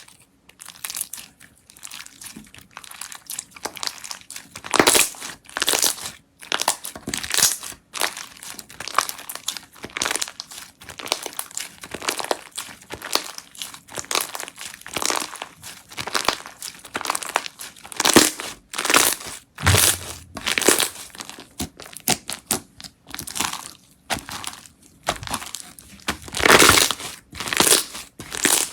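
Slime being squeezed and pressed by hand, giving irregular crackling and crinkling sounds in quick, uneven bursts.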